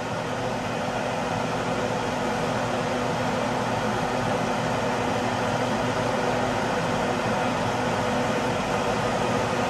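Kitchen exhaust fan running with a steady whooshing drone and a faint hum, there to take out the cooking smell.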